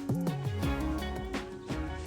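Background music with a steady beat and plucked string notes.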